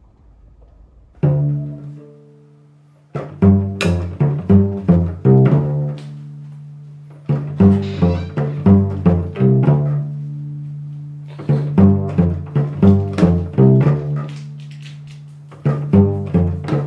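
Cello played pizzicato in a funk groove: a single plucked note, then four short runs of quick plucked notes, each ending on a held note that rings and fades before the next run.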